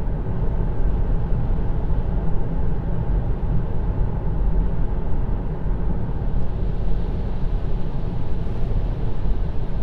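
Kia e-Soul electric crossover driving at speed on a wet expressway: steady tyre and road noise with wind, and no engine note since the car is electric.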